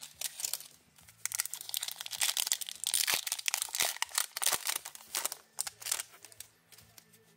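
Foil wrapper of an Upper Deck MVP hockey card pack being opened and crumpled by hand: a dense crackling and crinkling that starts about a second in and dies away near the end.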